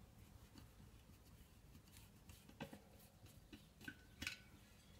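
Near silence, with a few faint light clicks and taps from hands working on a 144-spoke wire bicycle wheel as a spoke is being loosened. The clicks come in the second half, the loudest shortly before the end.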